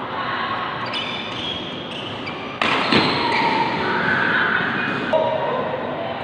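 Badminton doubles rally in a large hall: rackets striking the shuttlecock and players' feet thudding on the court. A sharp, loud hit comes a little over two and a half seconds in, followed by a louder stretch of play.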